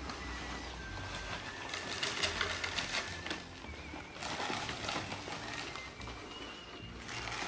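Dry horse mash poured from a large feed sack into plastic feed tubs: a grainy rustling hiss that comes in two pours, with small birds chirping faintly.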